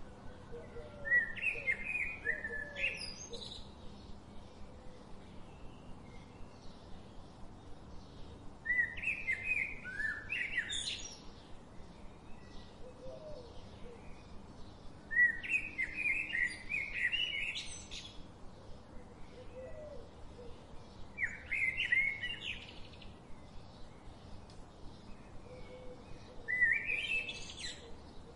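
A songbird singing the same short phrase five times, about every six seconds: a quick run of chirping notes that ends in a sharply rising note. A faint rapid ticking and a few soft low calls sit underneath.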